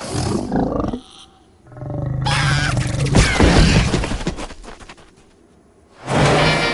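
Cartoon animal roaring and growling: a short burst, then a longer low, rough growl that fades out, and another starts near the end.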